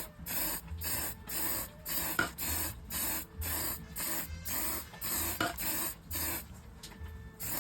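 Aerosol can of gray spray paint hissing in quick short bursts, about two a second, which stop for a moment near the end.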